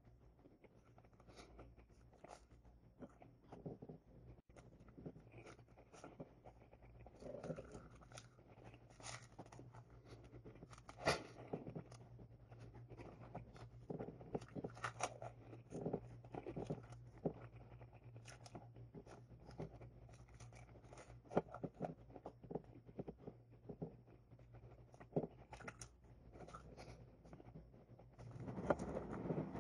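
Eating sounds: chewing and biting, with soft scattered clicks of hands tearing bread rolls and handling food on a plate, over a low steady hum. A rushing noise swells near the end.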